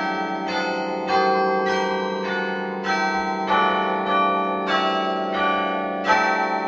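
Church bells struck close by in a tune, about two notes a second. Each note rings on under the next, so the notes overlap.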